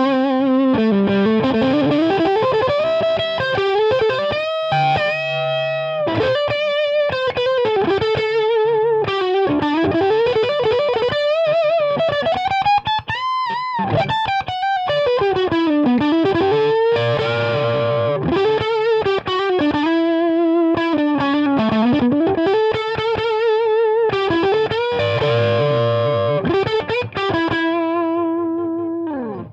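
Electric guitar played through a valve amp, a single-note lead line with string bends and wide vibrato on held notes. The guitar's signal is carried by an optical-fibre Light Lead instead of a copper cable, which the listeners find brighter, with more top end than the copper lead.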